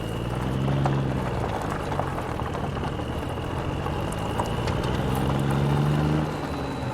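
A motor running: a low hum that swells and rises and falls in pitch twice, over a steady high whine, with scattered light clicks.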